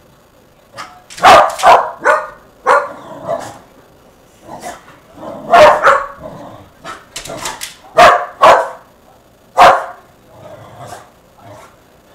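Shetland sheepdogs (shelties) barking: loud, sharp barks in quick runs of two or three with short pauses between, and a few fainter barks near the end.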